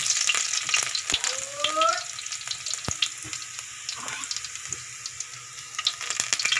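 Garlic cloves frying in hot oil in a wok: a steady sizzle full of sharp pops and crackles. It is loudest in the first couple of seconds, eases off in the middle and picks up again near the end.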